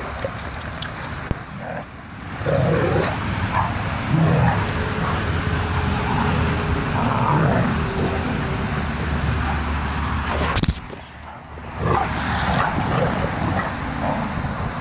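Dogs play-fighting, with short yips and barks over scuffling. The sound drops off briefly about two-thirds of the way through, then resumes.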